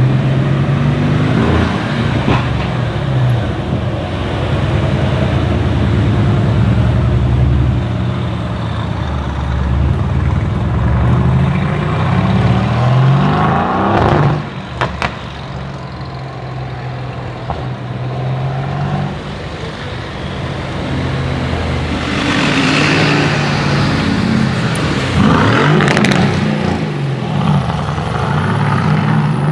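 Mercedes-AMG GT S's twin-turbo V8 through a custom straight-pipe exhaust, loud, its note rising and falling through revs and accelerations. About halfway through it drops off suddenly, followed by a couple of sharp crackles, then it climbs again in the last third.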